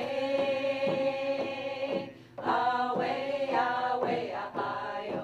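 A group of voices singing a chant-like song, with hand drums struck in a steady beat about twice a second. The singing breaks off briefly about two seconds in, then resumes.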